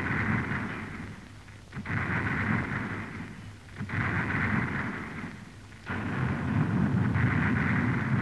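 Salute cannon fired again and again, a boom about every two seconds, each rumbling away before the next: a signal that guests are arriving.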